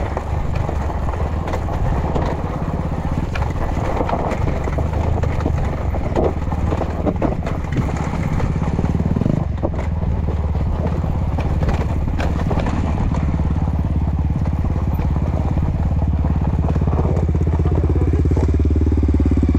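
Trail motorcycle engine running steadily at low revs, with a few scattered knocks and clatters over it.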